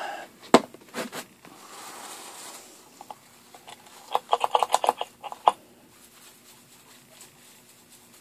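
A couple of knocks and a soft rustle as items are set on the bench and a tissue wipe is handled. About four seconds in comes a quick run of clicks as the pump-top isopropyl alcohol dispenser is pressed against the wipe, then one last click. The rest is faint.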